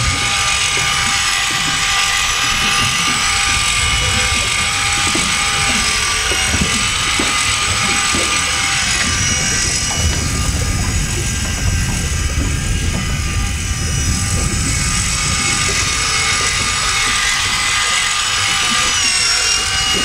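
Cordless drill coupled to a sea-fishing reel, whirring steadily as it winds a fish up from about 100 m deep; the motor's whine shifts slightly near the end.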